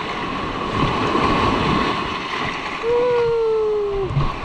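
Sea water splashing and washing, a steady rush of noise. About three seconds in, a held, slightly falling tone lasts about a second.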